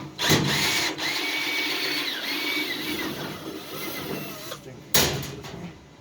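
Power drill running for about four seconds, its motor pitch rising and falling, then a single sharp knock.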